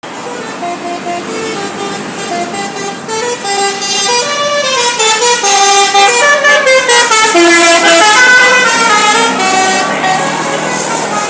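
Bus 'telolet basuri' musical horn playing a tune of stepped, held notes, often several tones at once. It grows louder about four seconds in and eases off near the end.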